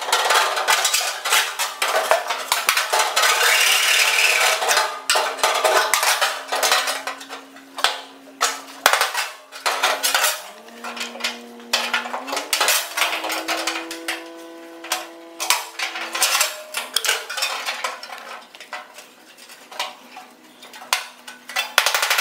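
Loose sheet steel being worked into a car's floor pan: repeated metal-on-metal clanks, knocks and rattles as the panel is pushed and shifted into place, densest in the first few seconds.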